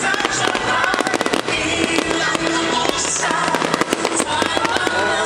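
Fireworks crackling and popping in rapid, dense strings over loud show music.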